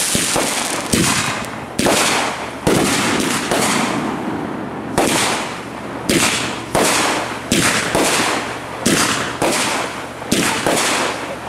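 Aerial fireworks bursting overhead: a rapid series of sharp bangs, roughly one a second with a short lull midway, each trailing off in a hiss.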